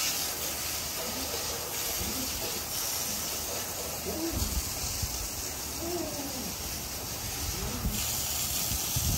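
Steady hiss of a water hose spraying in the kennel runs, with dogs whining in short rising-and-falling cries several times.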